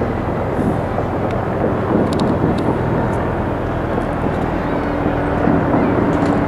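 Steady low rumbling outdoor city noise, with a few faint clicks about two seconds in and a low steady hum joining from about five seconds in.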